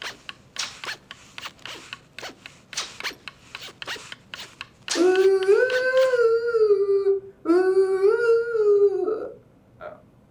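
Quick, irregular scratchy strokes for about five seconds, then a voice sings two long, slightly wavering notes of about two seconds each.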